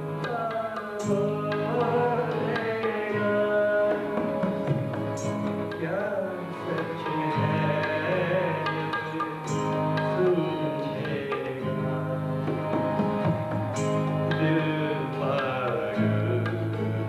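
Live folk song: a male voice singing to the steady rhythm of a dholak barrel drum, over sustained pitched accompaniment, with a sharp high tap about every four seconds.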